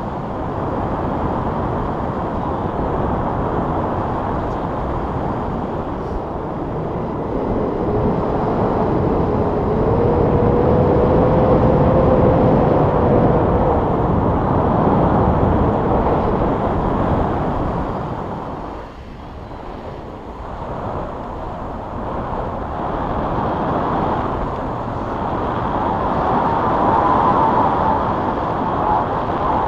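Wind rushing over an action camera's microphone during a paragliding flight: a loud, steady rushing rumble that eases briefly about two-thirds of the way through.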